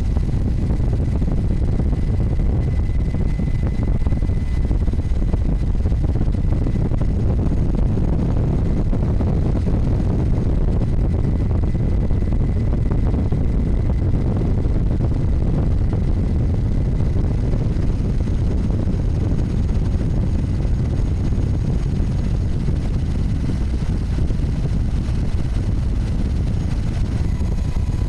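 Helicopter engine and rotor noise: a steady low rumble with a faint high whine.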